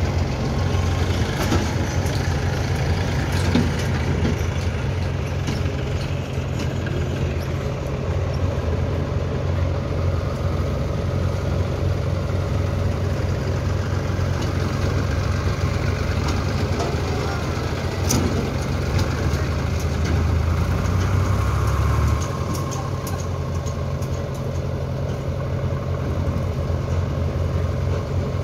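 Eicher tractor's diesel engine running steadily under load as it pulls a fully loaded trolley through soft soil. The low engine note drops suddenly about three-quarters of the way through.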